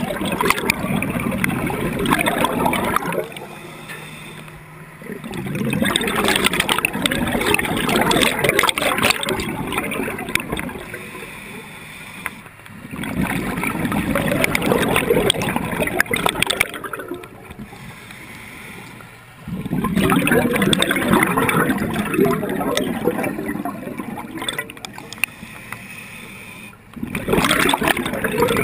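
A scuba diver breathing through a regulator underwater: loud gurgling bursts of exhaled bubbles from the regulator exhaust, about five of them, each a few seconds long, alternating with quieter stretches during the inhale.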